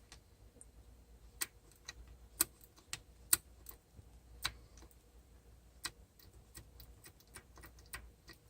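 Light, irregular metallic clicks and taps, about a dozen, as the spider and side gears of a Ford 8.8 TracLock limited-slip differential are rocked by hand to feel their play.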